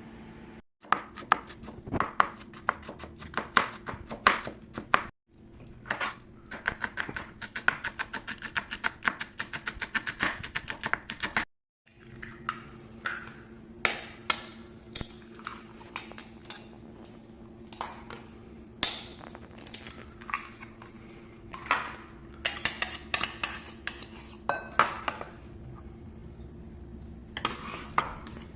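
Kitchen utensils clinking and scraping against bowls and dishes while food is prepared, including a run of quick, even taps about a quarter of the way in. The sound cuts out abruptly three times, and a low steady hum sits underneath in the later part.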